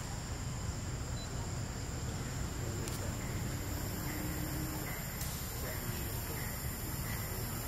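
Forest ambience: a steady high insect drone over a low rumble, with a few faint clicks.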